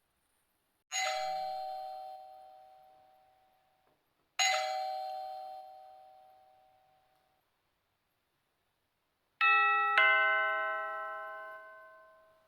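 Doorbell chime: two single ringing strikes a few seconds apart, each fading over about three seconds, then a two-note ding-dong near the end.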